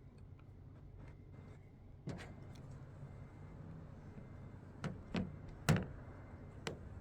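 Hands handling small plastic packets and packaging from a body-filler kit: a few sharp clicks and taps, the loudest a little past halfway, over a low steady hum.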